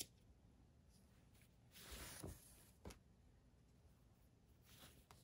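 Near silence, with a few faint handling sounds: a click at the start, a soft brief rustle about two seconds in and another click just after, from fabric and scissors being handled.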